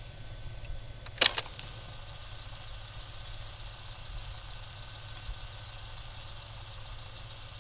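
Low steady hum with faint hiss, broken about a second in by one sharp mechanical click and two fainter clicks just after it.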